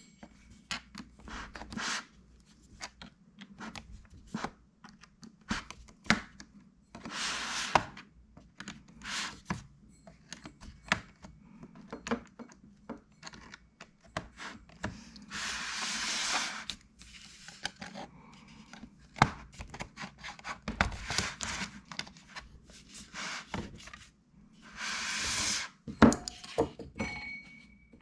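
Plastic clicks and knocks as a small flathead screwdriver pries the bottom cover of a Lenovo Legion 5 laptop loose around its edges, with several longer rubbing sounds of hands and tool on the plastic case.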